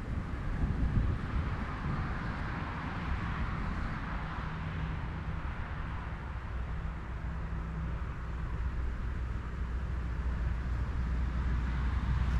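Distant road traffic: the tyre hiss of a passing vehicle swells and fades over the first few seconds, over a steady low rumble that grows louder near the end.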